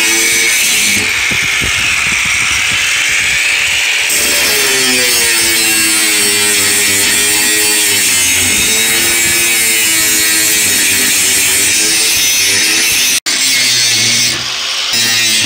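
Angle grinder with a cutoff wheel cutting through the steel tube cage of an IBC tote. Its steady whine dips and recovers in pitch as the wheel bites into the metal. It breaks off for an instant about thirteen seconds in, then carries on.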